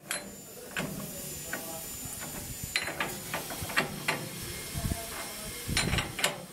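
Steel ring spanner clicking and clinking against a galvanised high-strength bolt nut as the nut is snug-tightened by hand: irregular metallic clicks, a few with a brief ring, the busiest cluster near the end. A steady hiss runs underneath.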